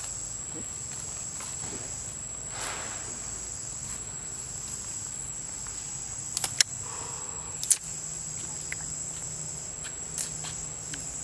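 Insects calling in a steady, high-pitched drone, with a few sharp clicks a little past halfway and one more about a second later.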